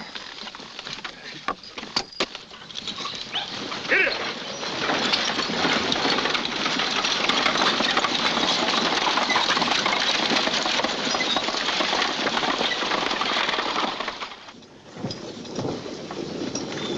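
Stagecoach team and riders galloping on a dirt road: a dense clatter of hoofbeats and rattling coach wheels that builds about four seconds in and breaks off near the end.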